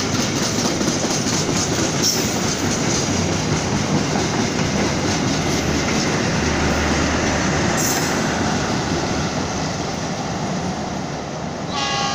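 A long-distance passenger train's coaches rumble and clatter past on the track, wheels clacking over rail joints. The sound fades over the last few seconds as the final coaches pass.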